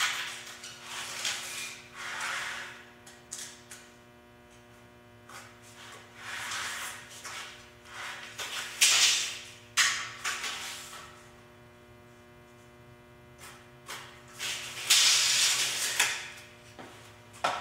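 Scraping and rustling from measuring and marking 2x4 boards with a tape measure and pencil on a concrete floor, in several short bursts, the loudest about halfway through and near the end. A steady electrical hum runs underneath.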